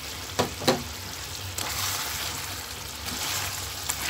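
Chicken pieces cooking in their gravy in a pan: a steady sizzling hiss that swells in the middle, with two sharp clicks about half a second in.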